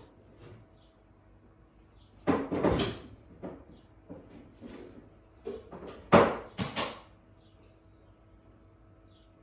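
A door bumping and rattling in two loud bouts about four seconds apart, with lighter knocks between them.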